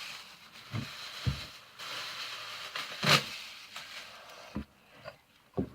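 Rustling, scraping handling noises with several short, soft knocks as sticky slime is wiped off hands.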